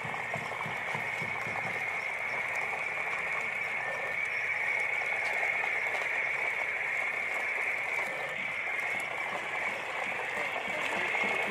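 Hard plastic wheels of a train of toy trucks rolling over brick paving, making a steady gritty rattle.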